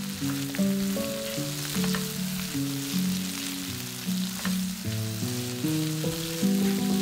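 Sliced vegetables sizzling in a hot nonstick frying pan as a spatula stirs them, with a few sharp scrapes and clicks. Soft background music with stepping, plucked-sounding notes plays underneath.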